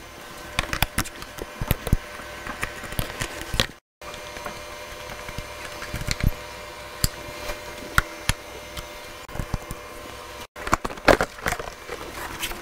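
Scattered clicks, knocks and rattles of a hand tool and plastic bodywork being handled as a dirt bike's fuel tank and seat are unbolted and lifted off, over a steady low hum.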